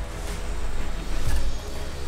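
Background music with a heavy bass beat.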